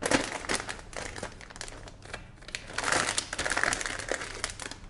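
Clear plastic bag around a motherboard crinkling and crackling as the board is slid out of it, louder just after the start and again around three to four seconds in.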